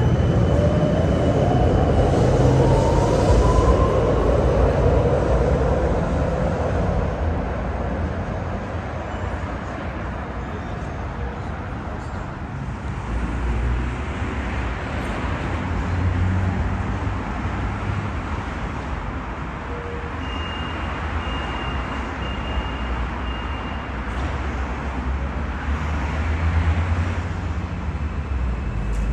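Electric city tram running, its motor whine rising in pitch over the first few seconds as it pulls away, over a steady low rumble that eases off and then swells again near the end.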